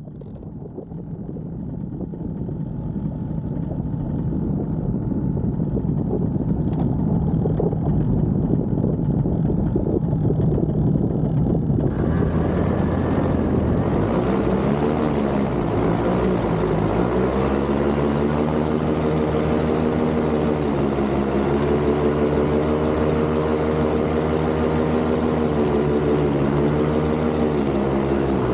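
Paramotor's backpack engine and propeller running in flight, fading in over the first few seconds. About twelve seconds in the sound turns brighter and the engine note becomes clear, falling and climbing back again, then holding steady with a few short dips in pitch.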